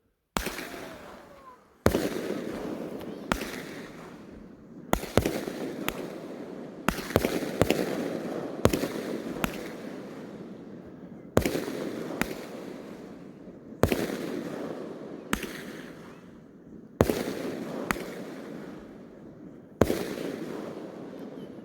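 Consumer fireworks going off one after another: about twenty sharp bangs at uneven intervals, each trailing off slowly before the next.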